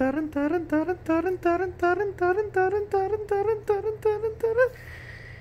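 A person humming a rapid string of short notes, about four a second, the pitch climbing steadily as a teasing build-up. The notes stop about a second before the end.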